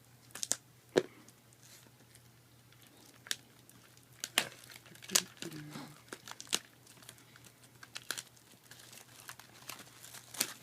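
Plastic shrink-wrap on a sealed booster box being torn and peeled off, heard as irregular crinkles and sharp crackles.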